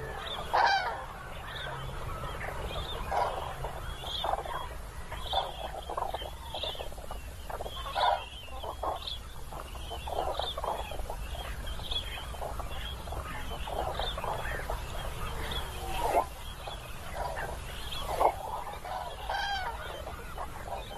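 A flock of common cranes calling: many short, overlapping trumpeting calls, one after another.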